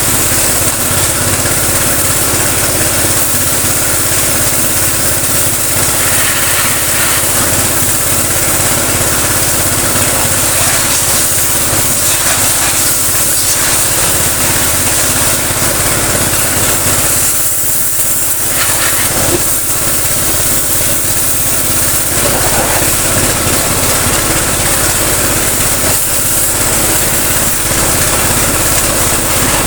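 Sanchin PS22 high-pressure piston pump, driven by a 7.5 hp motor, running steadily at about 50 bar while the water jet hisses from a flat-spray nozzle. The spray noise thins briefly about two-thirds of the way through.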